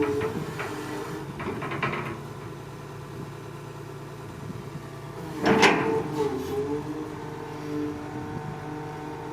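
Excavator's engine running steadily, its pitch dipping and recovering as the hydraulics take load, with a few light metallic clicks early and one loud knock about five and a half seconds in.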